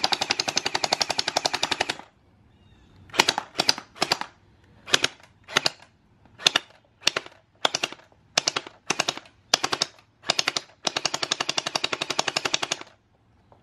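Battery-powered automatic gel ball blaster firing water beads. It fires a continuous rapid-fire burst of about two seconds, then a string of short bursts about half a second apart, then another long rapid-fire burst of about two seconds near the end.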